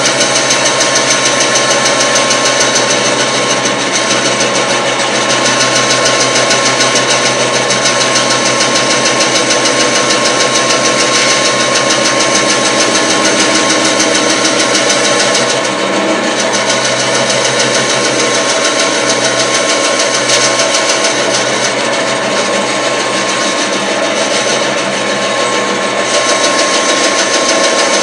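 Vintage Craftsman 12-inch bandsaw (model 103-24250) running steadily with a constant whine, while an oil stone is held against the back edge of the moving blade to hone it smooth, adding a steady scraping hiss.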